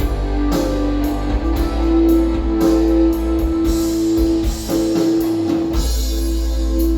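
Music with guitar, drums and heavy bass played back through an RCF Ayra Pro6 studio monitor speaker for a sound test.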